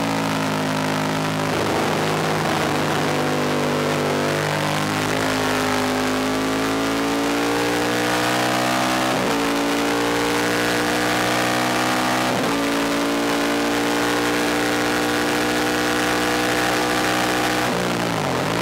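Ducati 1000DS air-cooled L-twin racing engine at full throttle, heard from onboard the bike, rising in pitch through the gears with a sharp drop at each of several upshifts. Near the end the pitch falls in quick steps as the rider downshifts for the corner.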